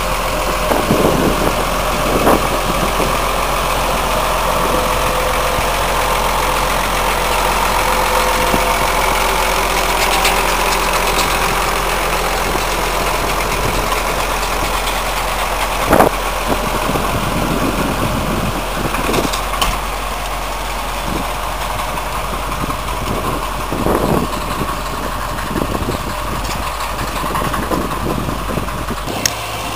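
County four-wheel-drive tractor's diesel engine running steadily under load as it pulls a multi-furrow plough through stubble. A few short thumps break in along the way.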